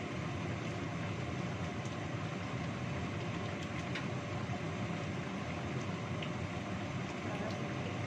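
Chicken in a thick coconut-milk sauce simmering in a wok on the stove: a steady rushing noise with a few faint pops from the bubbling sauce.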